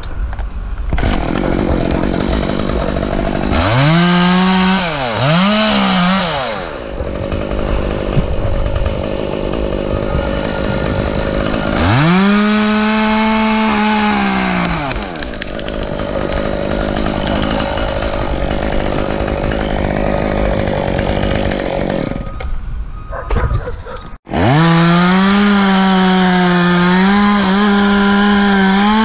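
Gas chainsaw revving up to full throttle in bursts, with the engine running lower and steadier between them. After a sudden brief break about three-quarters of the way through, it runs steadily at full throttle.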